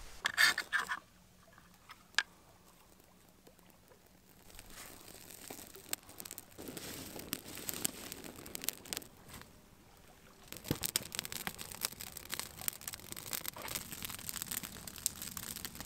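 Small campfire of dry conifer twigs crackling as it catches, with irregular sharp snaps and pops that grow much denser about ten seconds in.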